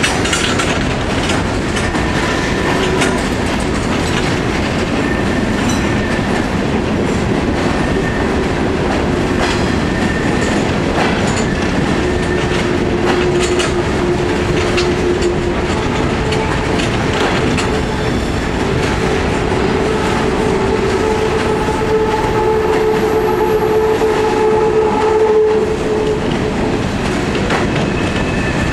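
Empty CSX open-top coal hopper cars rolling past in a steady rumble, wheels clicking over rail joints. Thin metallic squeals from the wheels on the curve come and go, loudest a little past twenty seconds in.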